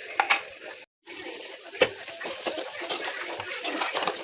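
Kitchen cooking sounds: a steady hiss with a few sharp knocks and clinks of utensils or pans. The sound cuts out briefly about a second in.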